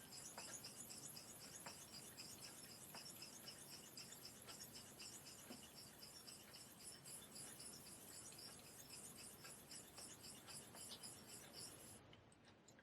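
Faint, steady rhythm of a straight razor's edge scraping back and forth on a wet Japanese natural finishing waterstone with a fine slurry. The strokes stop near the end.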